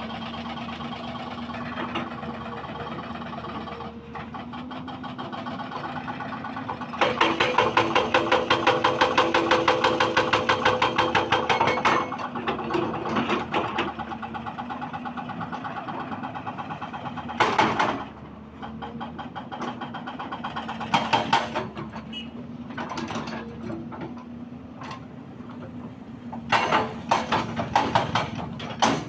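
Diesel engine of a heavy earthmoving machine running steadily, with bursts of rapid metallic clattering. The longest burst lasts about five seconds, a quarter of the way in, and shorter ones come later.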